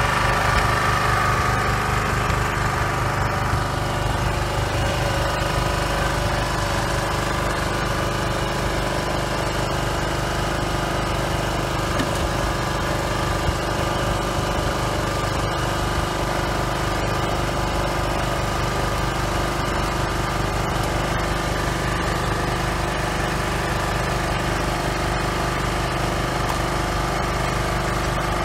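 A small engine running steadily at a constant speed, with a few faint knocks over it.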